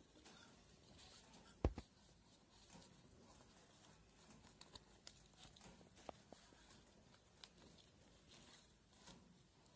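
Faint rustling and crinkling of a wet banana leaf being folded over by hand, with small clicks scattered through. A single sharp knock nearly two seconds in is the loudest sound.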